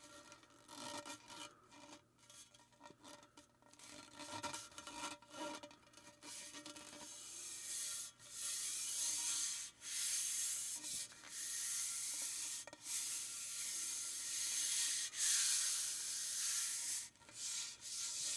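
A fuel pump nozzle handle being handled: a run of short scrapes and knocks, then from about eight seconds in a series of longer, louder hissing rub strokes with short breaks between them.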